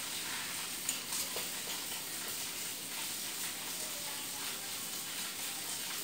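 Steady faint background hiss with a few faint clicks about a second in.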